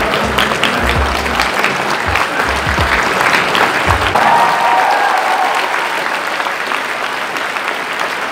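A large audience applauding, with music playing underneath and low thuds in the first few seconds.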